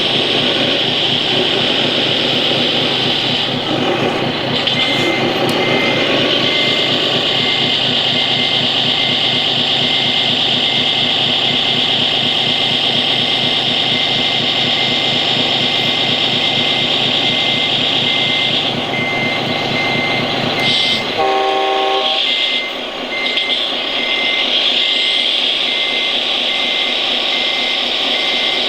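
Radio-controlled scale truck running: a high steady motor whine over a low, evenly pulsing engine-like drone, with a short high beep repeating about twice a second. The engine-like drone cuts off suddenly about 21 seconds in, followed at once by a brief horn-like tone.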